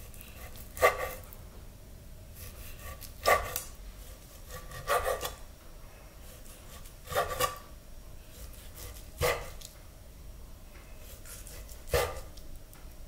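Chef's knife cutting raw beef large intestines (daechang) into chunks on a wooden cutting board. There are six separate cuts, about two seconds apart, each a short slice ending in a knock of the blade on the board.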